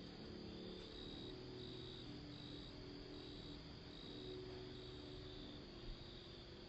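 Crickets chirping: a faint, high, even chirp that repeats a little more often than once a second over a quiet night-time background hiss.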